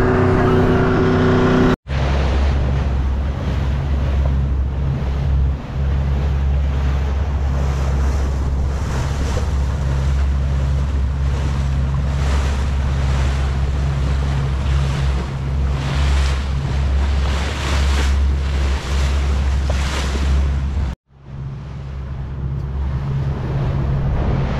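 Motorboat underway at speed: a steady low engine drone under the rush of hull and spray through the water, with wind buffeting the microphone. The sound cuts out briefly twice, and after the second break the water and wind are a little quieter.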